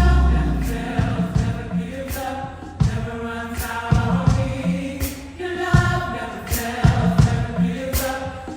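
Gospel choir singing in harmony over an electric bass (Fender Jazz Bass) playing low notes, with sharp high cymbal strokes keeping a regular beat about every 0.7 seconds.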